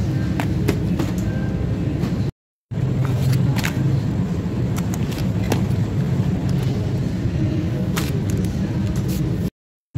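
Supermarket background noise: a steady low hum with scattered light clicks and rustles as plastic-wrapped bacon packs are handled and put in a shopping cart. The sound cuts out to silence twice, briefly, at edits.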